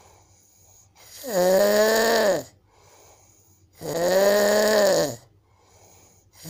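A man snoring in his sleep. There are two loud, pitched, bleating snores about a second and a half each, with a quiet gap between them, and a third starts at the very end. The snorer takes them for a sign of a breathing problem that needs a doctor.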